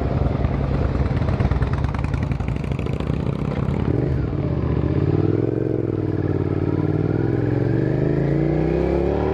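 Suzuki SV650S's V-twin engine running: a pulsing, chugging beat at low revs, then about four seconds in a smoother note that wavers and climbs steadily toward the end as the bike gathers speed.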